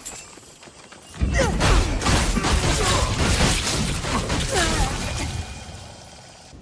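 Kusarigama fight sound effects: a dense clatter of clashing, metal-on-metal strikes and chain sounds. It starts suddenly about a second in and fades away near the end.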